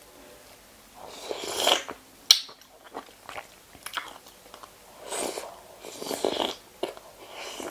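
Close-up eating sounds of razor clam meat dressed in fermented fish and crab sauce: several short wet sucking and chewing bursts, with one sharp click about two seconds in.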